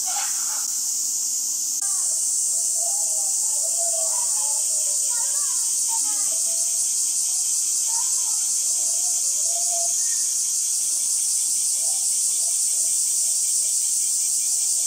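Steady, high-pitched drone of insects that runs without a break, with short chirps and faint voices underneath.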